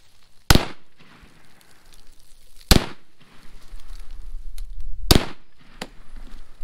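Three rifle shots from an M1 Garand, .30-06, about two and a half seconds apart, each a sharp crack with a short tail. A fainter crack follows just under a second after the third.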